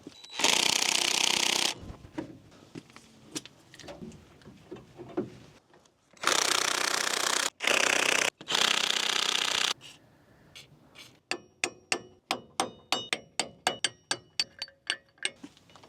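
Power tool hammering on the seized wheel-hub mounting bolts of a GMT400 truck in two long bursts, the second broken by two short pauses. After that comes a run of sharp, ringing metallic clicks, about three a second.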